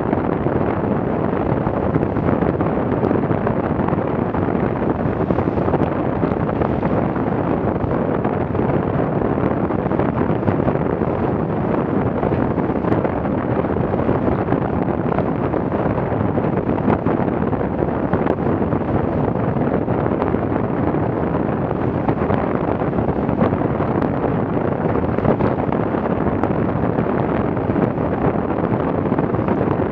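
Steady wind buffeting the microphone, mixed with the rush of water and spray as a Farrier F-82R trimaran sails fast, at about 12 knots, through high waves.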